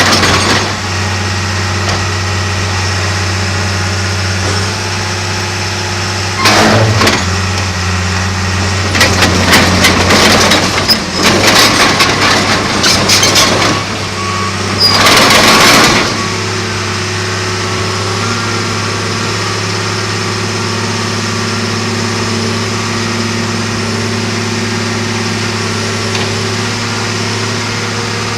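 John Deere 700J crawler dozer's diesel engine running steadily, with several loud, noisy bursts over it: one about six seconds in, a longer clattering stretch a few seconds later, and another just before the halfway mark.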